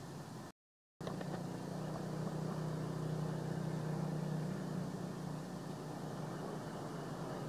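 Steady low hum of a motor running under a background hiss. The sound cuts out completely for half a second near the start.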